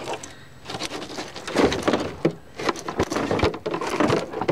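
Irregular knocking, rattling and rustling of close handling in a canoe, loud and uneven, as a hook is worked free of a northern pike lying in a landing net.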